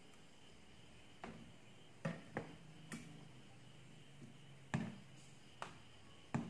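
Light, irregular knocks of a plastic scoop and spatula against a plastic food tub while fruit salad is scooped and mixed, about seven in all, over a faint steady hum.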